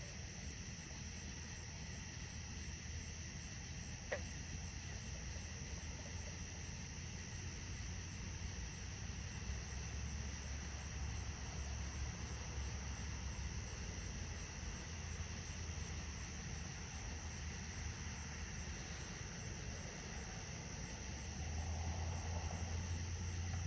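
Summer-night chorus of crickets, a steady high trill, over a low rumble of distant road traffic. One sharp click about four seconds in.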